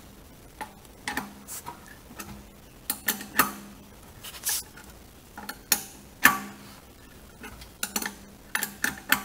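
Wrench turning the nut of a threaded-rod bushing press, giving irregular sharp metallic clicks and clinks, some ringing briefly, a few every second or so, as a new bushing is pressed into the rear axle beam.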